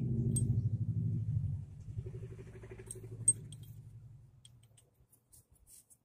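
Small metal parts clinking a few times, with one sharp clink a little after three seconds in, over a low, rapidly pulsing mechanical hum that fades away over about four seconds.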